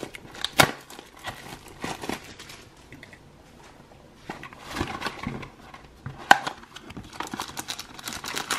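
Hands handling trading cards, a crinkly plastic wrapper and a cardboard kit box: rustling and crinkling with a few sharp taps, and the box's cardboard flap being pulled open near the end.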